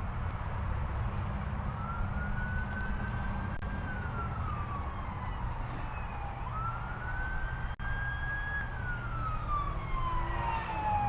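An emergency vehicle siren wailing in slow cycles: the tone climbs quickly, holds high, then slides down over a few seconds, about twice, over a steady low rumble.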